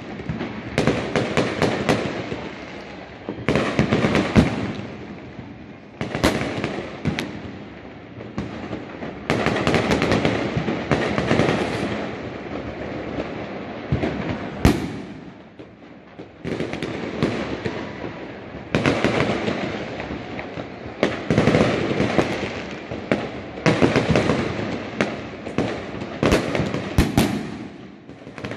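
Many fireworks going off at once: dense crackling and overlapping bangs from rockets and aerial bursts, swelling and easing in waves every few seconds, with one sharp single bang about halfway through.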